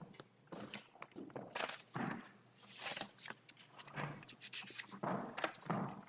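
Footsteps and irregular shuffling and handling knocks picked up by a courtroom lectern microphone as one lawyer leaves the lectern and the next steps up.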